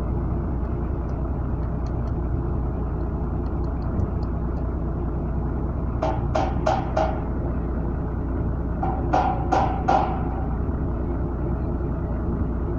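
A steady low rumble, with two quick runs of four sharp knocks, each knock carrying a short ringing tone, about six seconds in and again about nine seconds in.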